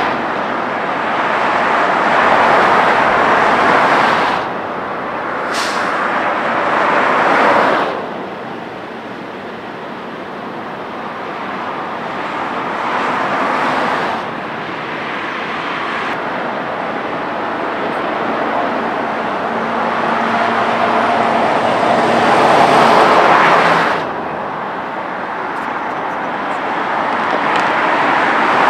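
Freeway traffic: a steady road noise of passing vehicles that swells and falls in waves as cars go by, several swells dropping off suddenly.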